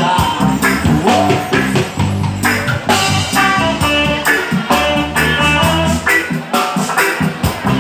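Roots reggae band playing an instrumental passage between sung lines: guitar chords, bass guitar and drum kit keeping a steady beat.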